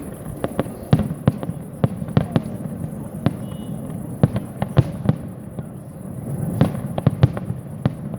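Fireworks display: a rapid, irregular string of sharp bangs from exploding aerial shells, several a second, over a steady low rumble.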